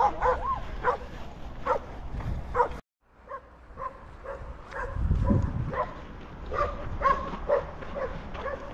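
A dog barking over and over in short barks, about two a second. The barking breaks off suddenly for a moment about three seconds in, then carries on.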